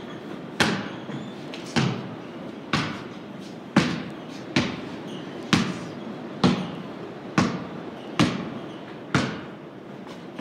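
Basketball dribbled on a wooden plank floor: about ten bounces roughly a second apart, each ringing briefly in the large, hollow barn loft.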